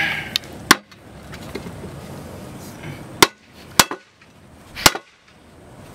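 Hammer blows on the face of a three-piece alloy wheel, knocking the face out of its barrel. There are four sharp strikes, each with a brief ring: one early, then three in the second half, two of them close together.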